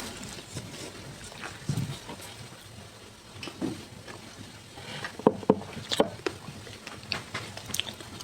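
Close-miked biting and chewing of a square snow bar: irregular crisp crunches and crackles, the loudest cluster a little past the middle.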